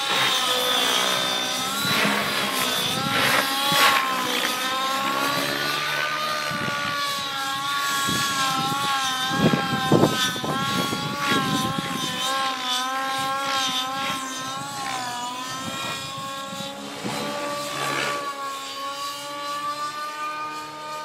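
Radio-controlled Align T-Rex model helicopter flying, its rotor and motor whine wavering up and down in pitch with the throttle and manoeuvres, with a brief louder rush about halfway through.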